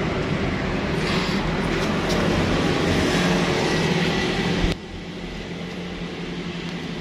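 A vehicle engine idling steadily, a low hum under a wash of noise. Its level drops suddenly a little over two-thirds of the way through and then holds there.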